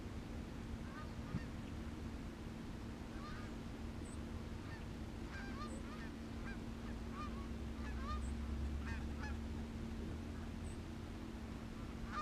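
Canada geese honking: many short calls, scattered and overlapping, over a steady low rumble.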